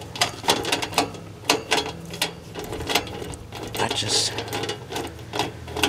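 A hand nut driver clicking as it ratchets back and forth, backing out a 5/16 sheet-metal screw from the condenser's service panel. There are several sharp clicks a second, unevenly spaced.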